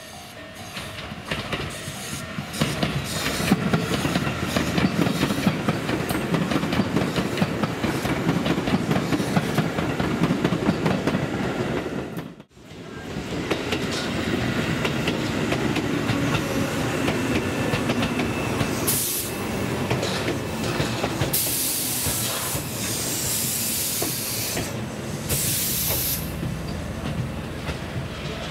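Tobu 8000 series electric trains running on the line, a steady rumble with wheels clicking over the rail joints. The sound cuts out abruptly about midway, then another train runs past with loud bursts of hissing near the end.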